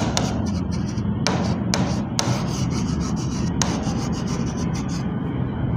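A pen stylus scratching across the glass of an interactive display panel as it handwrites words, in a run of short strokes with brief breaks between them.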